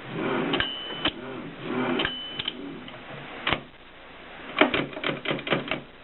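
Mignon Model 4 index typewriter being operated: single sharp mechanical clicks, two of them followed by a short high ring, then a quick run of about eight clicks near the end.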